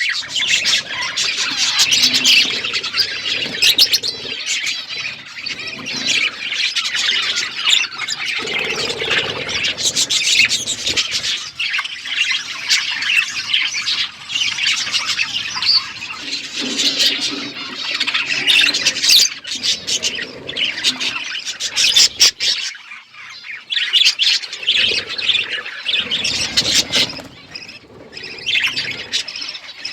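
A flock of pet budgerigars and lovebirds chirping and squawking continuously in dense, overlapping chatter, with scattered sharp clicks.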